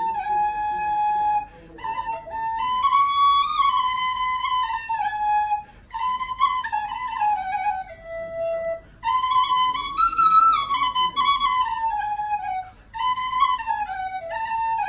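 Frula, a wooden Balkan shepherd's flute, playing a solo melody with quick ornamental grace notes, in phrases broken by several short pauses.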